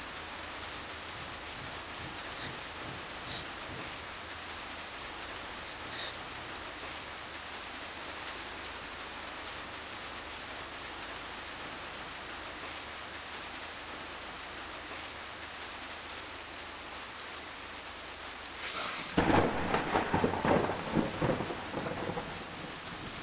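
Steady rain falling, then a loud roll of thunder about three-quarters of the way through that rumbles for a few seconds.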